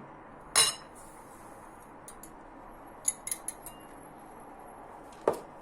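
Kitchen utensils clinking and knocking against a mixing bowl while sugar is added to beaten eggs: a sharp clink about half a second in, a few quick clicks around three seconds in, and a knock near the end.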